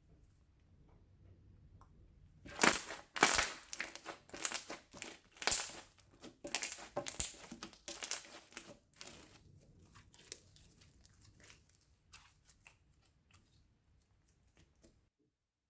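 Slime being squished and worked by hand, making quick crackling and popping clicks. They are densest and loudest for several seconds, thin out, then stop abruptly near the end.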